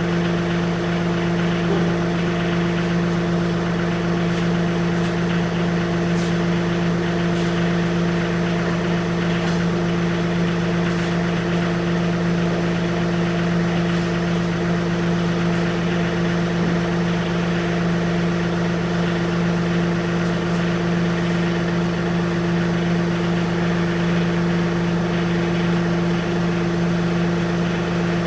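John Deere tractor engine running steadily at constant speed, a strong, unchanging low hum.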